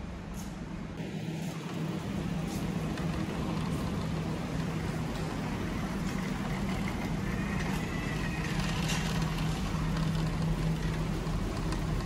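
Shopping cart rolling and rattling over a concrete floor, over a steady low hum.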